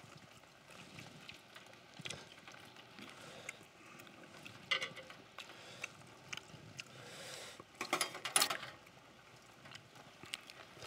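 Metal chopsticks and spoons tapping and scraping on a cast-iron pot-lid griddle, in scattered faint clicks, with a louder run of clicks about eight seconds in.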